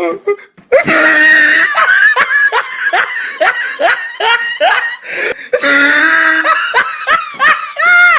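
Laughter in high voices, with a long run of quick repeated "ha" beats, about two or three a second, in the middle.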